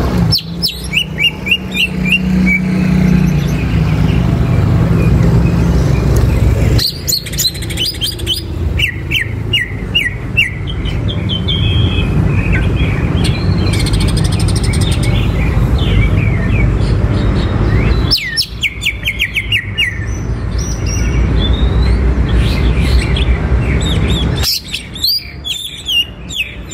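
Caged greater green leafbird (cucak ijo) singing in several bouts of rapid-fire chirping notes, the fast 'tembakan' runs, over a steady low rumble.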